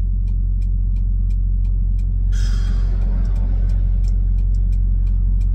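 Steady low engine rumble heard inside a semi-truck cab, with a fast, even ticking. About two seconds in comes a short hiss of released air that fades within a second.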